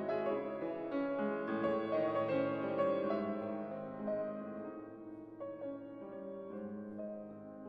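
Background piano music, soft and unhurried, fading slightly toward the end.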